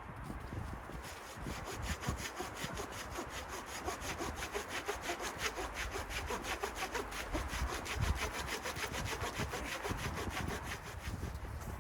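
Hand saw cutting wood with quick, even back-and-forth strokes, starting about a second in and easing off near the end.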